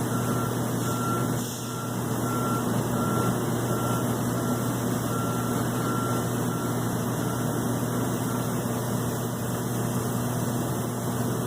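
Reversing beeper on an airport ground vehicle, a single-tone beep repeating about twice a second and stopping about eight and a half seconds in, over a steady low mechanical hum.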